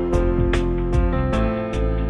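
Instrumental background music with held notes and a steady run of plucked notes.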